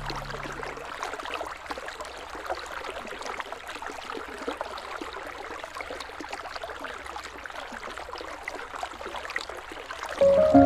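Gentle river water flowing and rippling, with many small trickling splashes. Sustained music tones fade out in the first second, and music comes back in, louder, near the end.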